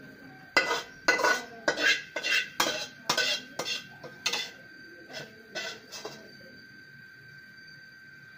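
Metal spoon scraping and knocking against a steel pan as cooked pizza sauce is scraped out of it, about a dozen quick strokes that stop about six seconds in.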